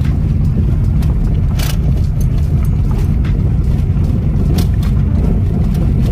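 Inside a car driving slowly over a rough gravel road: a steady low rumble of tyres on gravel and the body shaking, with occasional sharp ticks.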